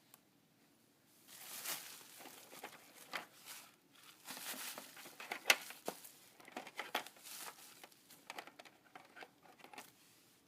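Packaging crinkling and rustling as it is handled and pulled open, in bursts with sharp crackles, starting about a second in and dying away near the end.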